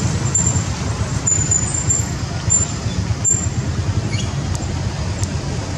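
Steady low outdoor rumble, with faint high chirps coming and going.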